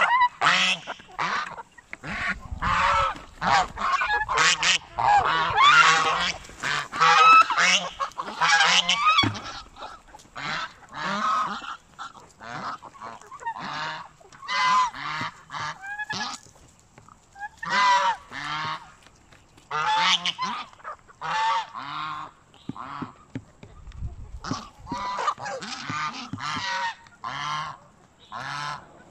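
A flock of domestic geese honking. Many calls overlap thickly for the first several seconds, then come in scattered bouts with short pauses between them.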